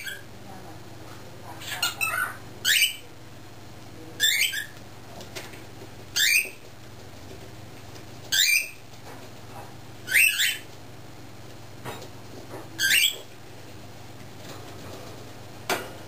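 Cockatiel calling: a string of short, loud, high-pitched calls, one roughly every two seconds, each sweeping quickly in pitch.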